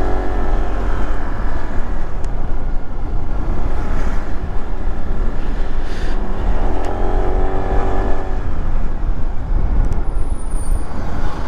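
WMoto RT1 150 cc scooter's engine running under way, with a steady low rumble of wind on the microphone; the engine note rises and falls in pitch as the rider speeds up and eases off, most clearly about seven seconds in.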